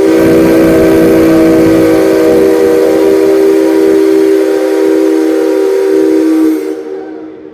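Steam locomotive C57 135's whistle giving one long blast: several low tones sounding together over a hiss, held steady for about six and a half seconds before dying away near the end.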